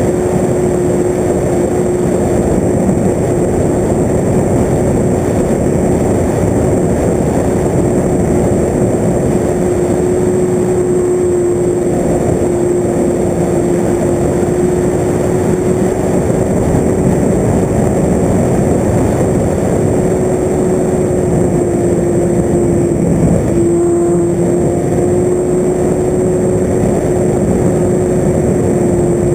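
Electric motor and propeller of an FPV radio-controlled model aircraft running steadily: a loud, steady tone over a rushing noise. The pitch dips briefly about 23 seconds in, then recovers.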